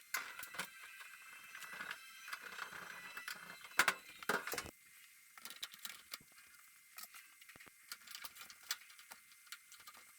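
Whirlpool clothes dryer running, with irregular clicks and knocks and short squeaks, thickest in the first half.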